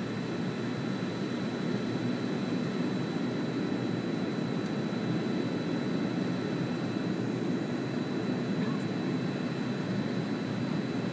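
Steady jet engine and airflow noise heard inside an airliner cabin as the plane climbs after takeoff, with a faint high steady whine over it.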